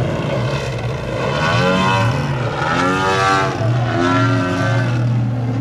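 Engine of a giant-scale 108-inch 3DHS Extra 330LT radio-control aerobatic plane running, its pitch surging up and down again and again under the throttle as the plane manoeuvres and hangs in a nose-up hover.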